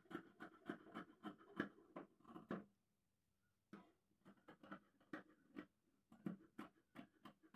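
Scissors snipping through folded fabric: a run of short, quick snips several to the second, pausing briefly about three seconds in, then snipping on.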